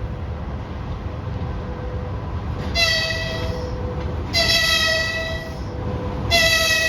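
VL80S electric locomotive sounding its horn: two single-pitch blasts of about a second each, and a third starting near the end, over the steady rumble of the freight train running.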